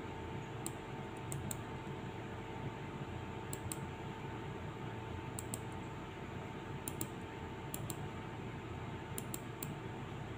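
Light, sharp computer mouse clicks, often in quick pairs, every second or two, as a text box is selected and dragged on screen. Under them runs a steady low hum from the computer.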